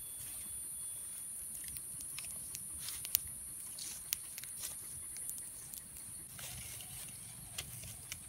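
Small scattered clicks and taps as chunks of raw beef, onion and tomato are pushed onto green skewers, the sharpest about three and four seconds in, over a steady high-pitched drone in the background.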